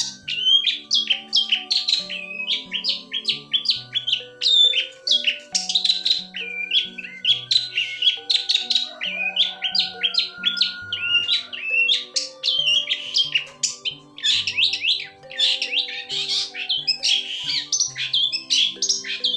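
Long-tailed shrike (pentet) singing a fast, unbroken run of varied chattering and whistled notes, with soft background music of low sustained notes underneath.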